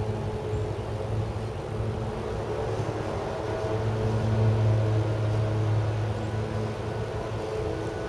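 A light breeze buffeting the camera's microphones, over a steady low hum that swells a little about halfway through.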